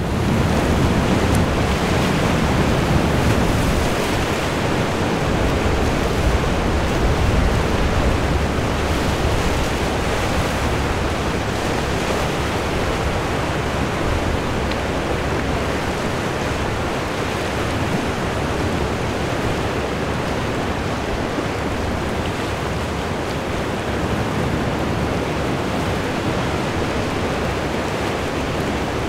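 Ocean surf washing in, a steady rushing with no single wave standing out. Wind rumbles on the microphone, heavier during roughly the first nine seconds.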